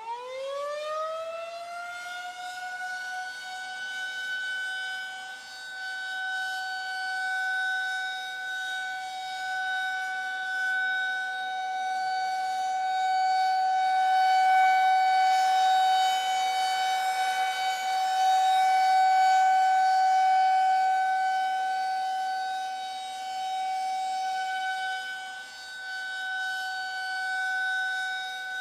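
Civil defense air-raid siren winding up from low to full pitch in the first couple of seconds, then holding one steady tone while its loudness slowly swells and fades.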